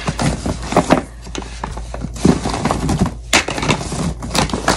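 Bottles and jars of beauty products knocking and clattering together as they are rummaged through by hand in a bin: a run of irregular clicks and knocks.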